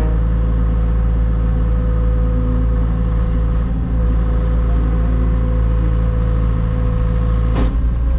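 Mini excavator's diesel engine running steadily while digging, with a steady whine joining about four seconds in and a brief knock near the end.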